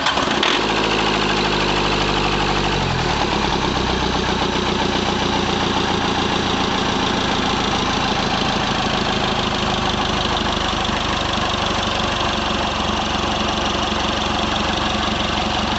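Mitsubishi Triton turbodiesel engine running with its manifold removed, just after starting. Its speed drops over the first three seconds, then settles into a steady, clattering idle.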